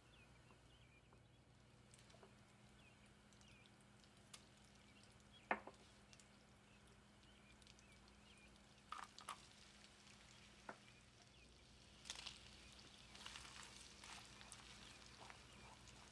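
Quiet cooking sounds: a few light clicks and knocks of a utensil against cookware, the sharpest about five seconds in, then faint sizzling and stirring noise from about twelve seconds in.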